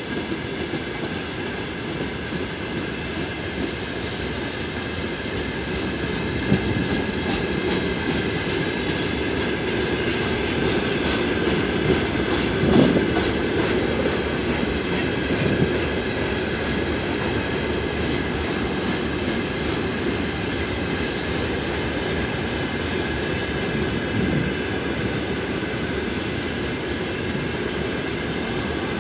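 Freight wagons (tank cars and open gondola cars) rolling past close by: a steady rumble of steel wheels on rail with clickety-clack over the joints and a thin steady high ring, and one louder clank about 13 seconds in.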